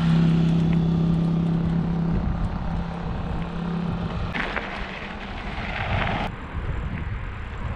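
A small motorcycle pulling away ahead, its engine a steady hum that fades out about four seconds in, over a rumble of wind and road noise. A rush of noise follows for about two seconds and stops suddenly.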